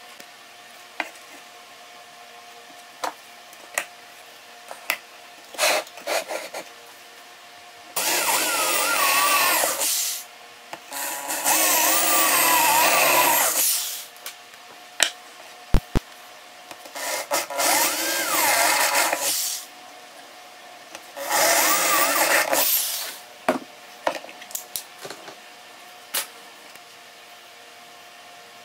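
A power tool cutting into plywood in four bursts of a few seconds each, its motor pitch wavering as it loads up and frees, with short clicks and knocks of the wood being handled in between.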